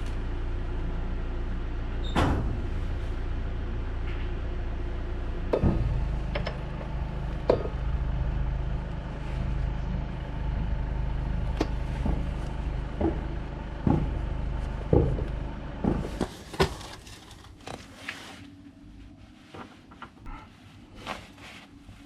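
A steady low engine-like drone, like a vehicle running, stops about three quarters of the way through. Over it come scattered clinks and knocks of metal parts being handled while a motorcycle rear wheel is refitted, leaving only occasional quiet clicks at the end.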